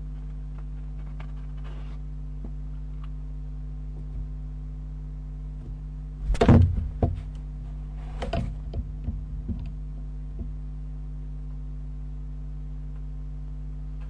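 Barn owl knocking and scrabbling against the wooden nestbox as it goes up to the entrance hole: a burst of loud thumps about six seconds in, then a lighter run of knocks and scrapes about two seconds later. A steady electrical hum runs underneath.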